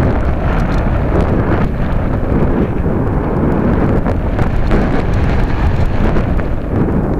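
Steady, loud rush of airflow buffeting the microphone of a keychain camera riding on a Radian powered glider in flight.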